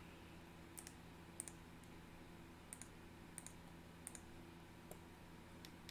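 Several faint clicks of a computer mouse, some in quick pairs, over a faint steady electrical hum.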